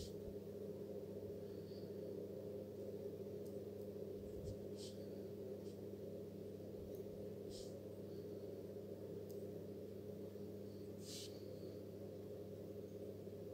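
A steady low hum holding several constant pitches, with a few faint light ticks scattered through it.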